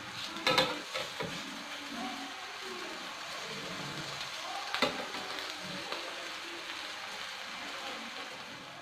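A metal utensil stirring and turning cooked biryani rice in a steel pot, scraping through the rice over a steady hiss. It clinks sharply against the pot about half a second in and again near the middle.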